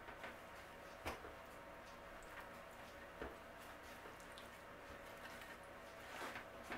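Faint, soft squelching and rustling of a paper towel pressed and rubbed against a wet, descaled sea bass to dry it, with a few small clicks about a second in, around three seconds, and near the end.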